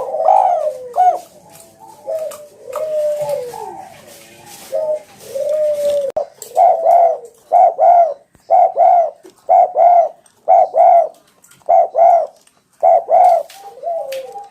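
Spotted dove (tekukur) cooing loudly. The first six seconds or so hold irregular sliding calls with clicks, then the coos settle into a steady run of short notes in pairs, about one pair a second.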